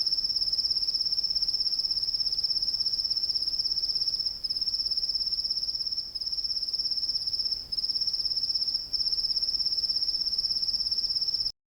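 Night ambience of a cricket trilling: one steady, rapidly pulsing high-pitched trill that breaks off briefly a few times and then cuts off suddenly near the end.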